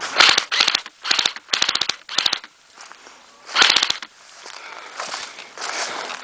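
Airsoft gun firing in short rapid bursts, about five bursts in the first four seconds, each a quick string of sharp cracks, followed by quieter rustling movement.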